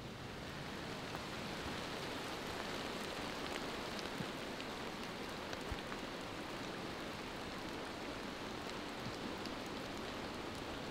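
Steady rain falling on woodland leaves, an even hiss with scattered faint drip ticks.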